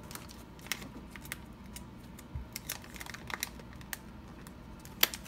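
Hands handling a mailer envelope and picking at a small plastic bag holding a PVC patch: light crinkling and scattered small clicks, with one sharper click near the end.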